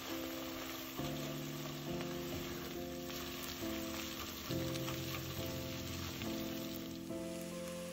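Chopped garlic and onion sizzling in oil in a nonstick pot, stirred with a spatula, under background music of held chords that change about once a second.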